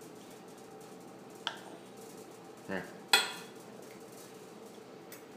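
A few hard clicks and knocks, like objects tapping on a plastic high chair tray: a light click about a second and a half in, a duller knock just before three seconds, and a sharp, louder click right after it.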